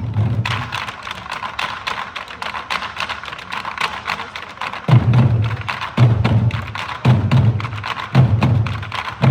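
Nanta drumming: fast, sharp stick clicks for the first half, then deep drum strokes about once a second from about five seconds in, with the quick stick strikes going on between them.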